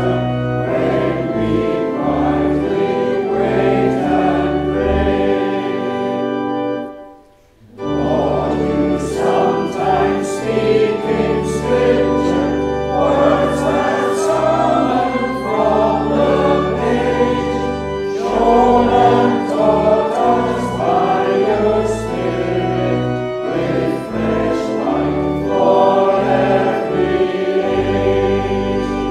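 A choir singing a hymn with instrumental accompaniment. The music stops for a moment about seven seconds in, at the break between two verses, then the singing resumes.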